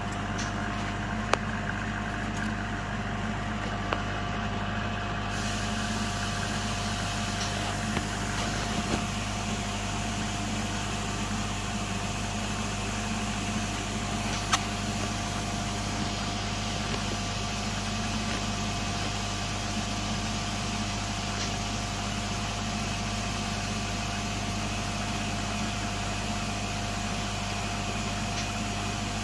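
Steady hum of running lab equipment, with a few sharp metallic clicks from handling the metal electrode holder of a carbon-coating vacuum evaporator.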